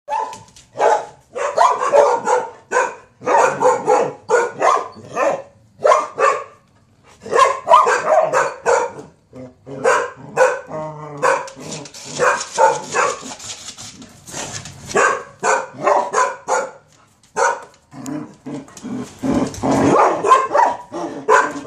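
Dog barking in rapid volleys of short, sharp barks with brief pauses between them: agitated barking at a skateboard rocking beneath the rider's feet.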